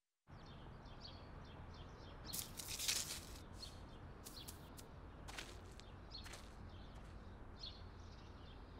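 Faint outdoor ambience with small birds chirping in quick, repeated short calls, and a few brief rustling sounds, the loudest about three seconds in.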